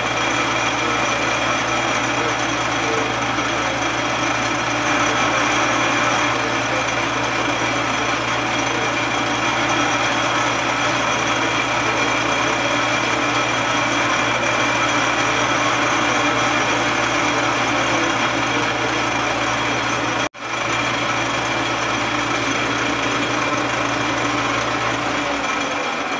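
Atlas-Clausing 5310 metal lathe running steadily, a constant hum with a whine of several steady tones above it. The sound breaks off for an instant about twenty seconds in, and the machine begins to wind down near the end.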